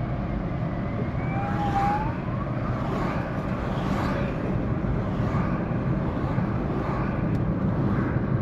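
Steady road and engine noise of a vehicle being driven, with a short rising whistle-like tone about a second and a half in.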